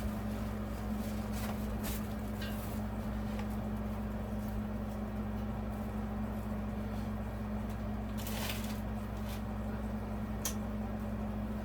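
Encon Casanova ceiling fan motor (model 52-CL) running bare, with no blades or housing, giving a steady hum. A few faint clicks, and a brief rustle about eight seconds in.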